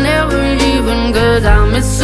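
Background pop music with singing, a bass line and a steady beat.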